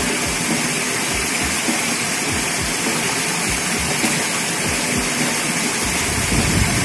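Water rushing through a fish-pond sluice gate in a steady, loud gush. Irregular low splashes and knocks run under it as hands work in the water.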